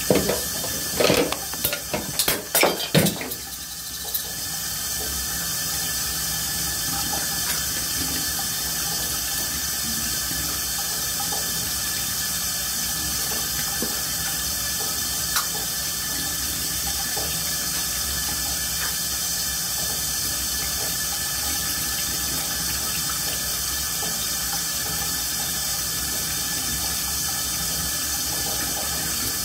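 A few sharp knocks and clatters in the first three seconds, then water running steadily, an even hiss that holds at one level.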